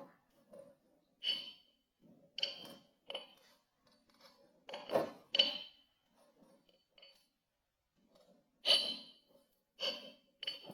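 Kinetic sand being squished and handled: a series of about ten short sounds at irregular intervals, the loudest about halfway through and again near the end.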